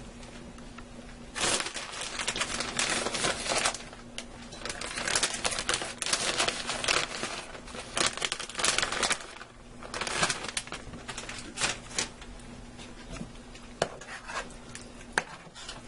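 Plastic bag of shredded cheddar cheese crinkling and rustling in bursts as the cheese is shaken out of it.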